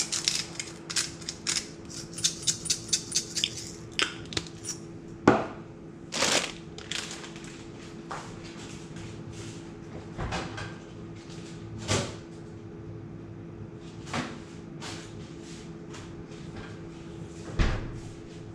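Kitchen handling sounds. A quick run of small clicks, several a second, in the first few seconds while the steaks are seasoned, then scattered knocks and clunks of doors and kitchen items, over a steady low hum.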